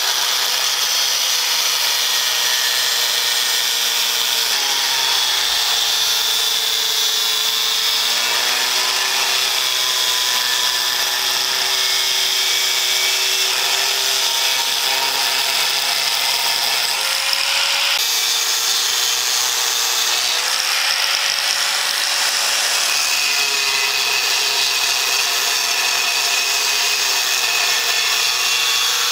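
Electric angle grinder with a thin cut-off disc cutting through rusty steel plate: a continuous high, hissing grind over the motor's whine. The whine sags in pitch when the disc bites harder and recovers several times.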